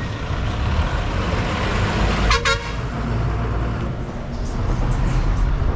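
A road vehicle's engine rumbling past, with one short horn toot a little over two seconds in.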